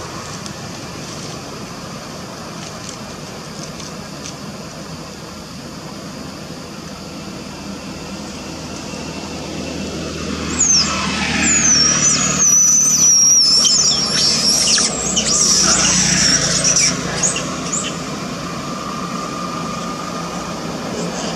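Baby long-tailed macaque squealing: loud, high-pitched, wavering cries that start about ten seconds in and last several seconds, over a steady background hum.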